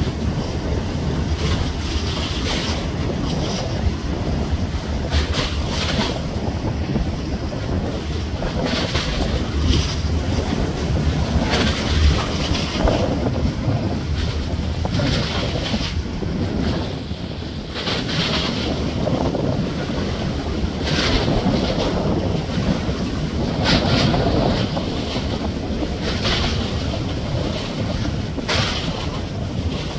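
Minehunter ORP Kormoran passing close under way, with a steady low rumble from the ship, repeated rushing splashes of its wake and the waves, and wind buffeting the microphone.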